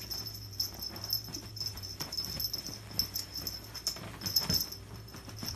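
Ferret playing, making quick soft clucking chuckles (dooking).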